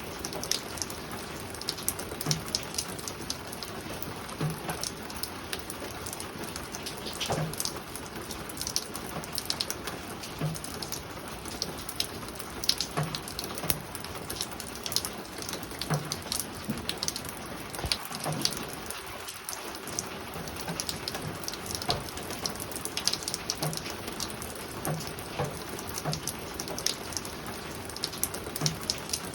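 Spring rain falling on a roof: a steady patter of raindrops with scattered sharper drips and soft low knocks every second or so.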